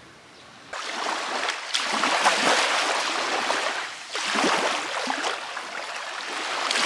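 Small waves washing up a sandy beach, the thin water fizzing over the sand. It starts suddenly under a second in and comes in two surges, the second peaking near the end.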